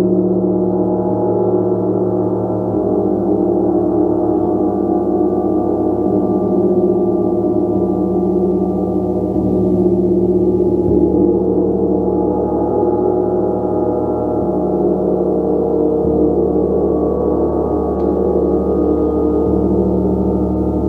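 Gong played continuously, its many overlapping tones sustaining as a steady, dense wash with gentle swells.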